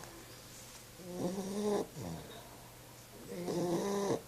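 Puppy snoring in its sleep: two pitched snores, each under a second long, about two and a half seconds apart, each trailing off with a falling pitch.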